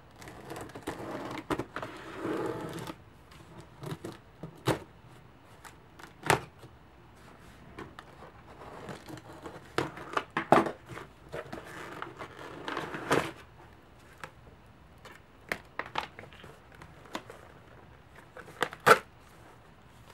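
A cardboard shipping box being opened by hand: scissors cutting packing tape, tape tearing away and paper crinkling, with scattered sharp knocks and taps from the scissors and cardboard flaps.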